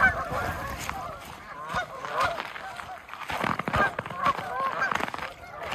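A large flock of Canada geese on open water, honking continually, many short calls overlapping.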